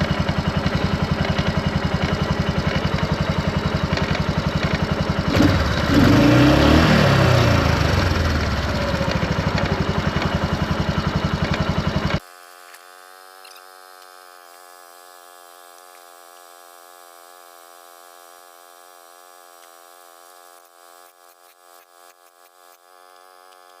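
Kawasaki Prairie KVF360 ATV's single-cylinder engine idling with an even rapid pulse, revving up and back down once between about five and nine seconds in. The sound cuts off abruptly about twelve seconds in, leaving a faint steady hum.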